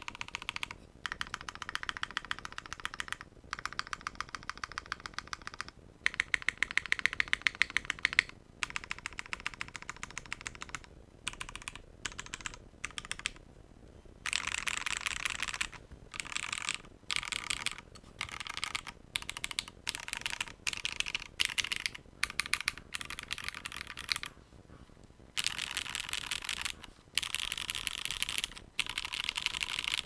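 Typing on a KFE CE custom mechanical keyboard with lubed and filmed Cherry MX Black Hyperglide linear switches, a polycarbonate plate and GMK keycaps: rapid keystrokes in runs of a few seconds, broken by short pauses.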